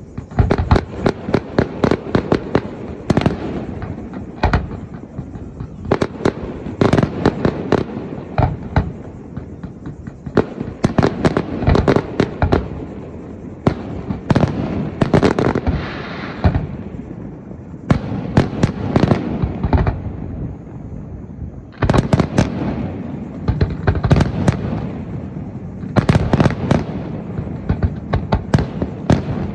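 Aerial fireworks display: volleys of shell bursts, with rapid strings of sharp cracks and deeper booms coming in waves a few seconds long, separated by brief lulls.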